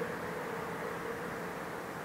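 Tail of a distant train horn's long, steady note, fading out within the first second and a half, leaving a steady hiss.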